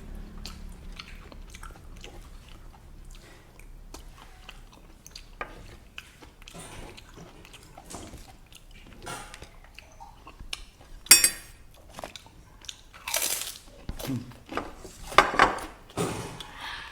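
Close-up eating sounds: chewing and crunching with many small clicks, and a few louder crunches in the last six seconds.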